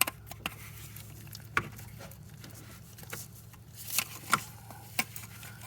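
Scattered sharp plastic clicks and taps as a forked door-panel popper tool is wiggled against a Honda/Acura wiring-harness connector to squeeze its two locking tabs, with a steady low hum underneath.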